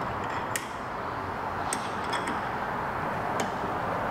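Steady workshop background noise with a few light, sharp clicks of small mounting hardware being handled at the scooter's headlight.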